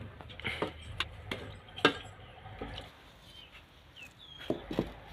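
Scattered clicks and knocks of a metal ladle against an aluminium cooking pot as liquid is spooned over rice. The loudest knock comes just under two seconds in, and two more follow close together near the end.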